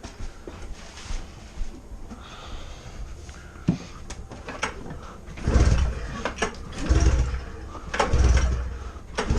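A 2002 Polaris RMK 600's two-stroke twin engine being cranked over three times with the pull-starter, about a second apart, each pull a short low churning burst, for a compression test on the magneto-side cylinder. Before the pulls, a few light clicks and knocks of handling.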